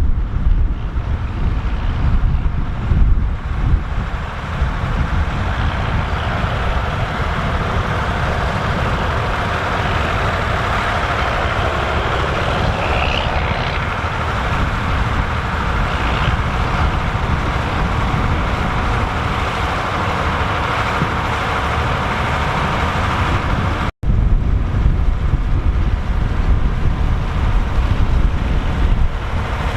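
Massey Ferguson 3070 tractor's diesel engine running steadily with a deep rumble, with wind noise on the microphone. The sound cuts out for an instant about 24 seconds in.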